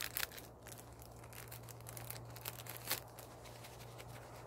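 Crinkling and tearing of a small wrapper being torn open by hand: an uneven run of dry crackles, sharpest near the start and again about three seconds in.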